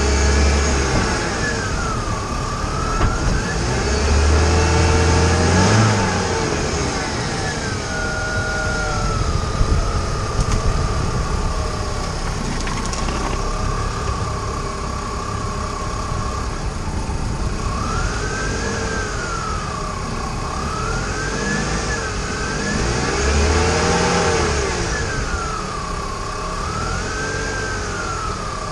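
BMW E46 325xi being driven, its inline-six engine revving up and down repeatedly over steady tyre and road noise heard from beside the wheel. A few brief sharp knocks stand out, about 3 and 10 seconds in.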